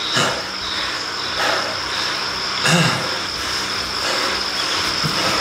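A man breathing heavily after a maximal ramp test on an indoor bike trainer, with about four hard breaths a second or so apart. Under the breathing there is a steady high-pitched whine and a low hum.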